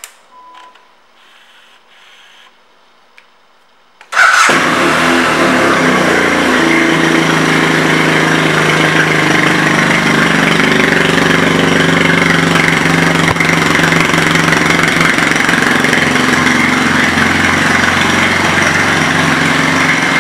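2013 BMW F 800 R's 798 cc parallel-twin engine starting about four seconds in, catching at once with a brief flare of revs, then idling steadily and loud.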